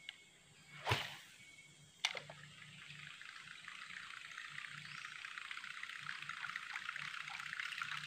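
A fishing cast: the rod and line swish about a second in, and the lure smacks onto the water a second later. Then the surface lure is reeled back, sputtering and splashing across the water in a steady crackle that slowly grows louder.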